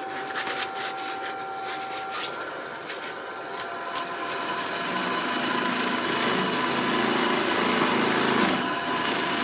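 Electric woodturning lathe running a cloth buffing wheel while a turned wooden Canton ball is pressed against it for polishing; the rubbing grows louder from about five seconds in over a steady motor whine. Cloth rustling and small clicks come before the wheel noise in the first two seconds.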